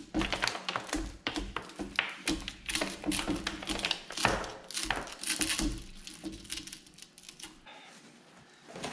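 Crumbled pieces of broken window glass being knocked and picked out of a steel window frame's channel, clicking and tinkling as they drop into a bucket. A quick run of many small taps that thins out after about six seconds.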